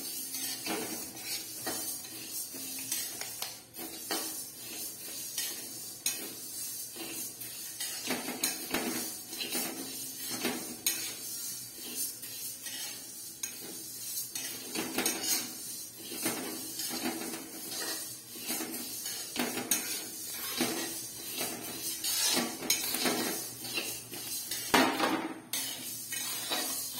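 Flat metal spatula scraping and stirring dry moong dal around an aluminium kadai, in repeated irregular strokes of metal on metal with the lentils rattling against the pan as they are dry-roasted.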